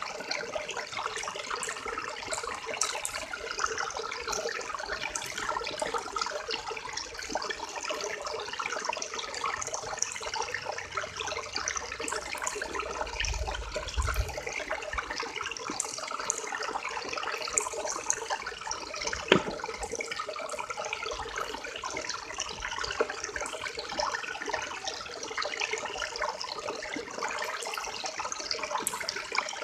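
River water running and splashing in a steady, busy rush. There is a single sharp click about two-thirds of the way through and a brief low rumble a little before the middle.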